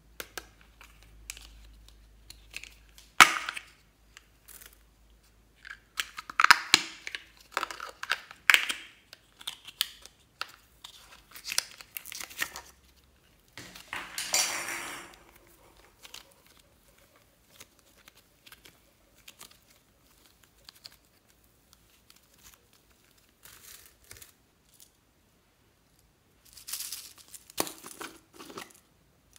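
Thin plastic containers handled and squeezed open by hand: irregular crinkling and crackling with sharp clicks, the loudest click about three seconds in and a longer crackly stretch about halfway through.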